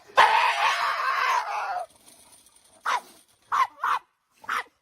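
A dog: a harsh, drawn-out sound lasting about a second and a half, then, after a pause, four short yips.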